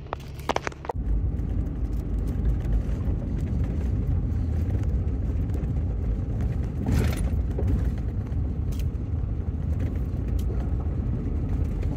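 Pickup truck driving on a gravel dirt road, heard from inside the cab: a steady low rumble of engine and tyres that starts about a second in, with a brief louder burst of noise about seven seconds in.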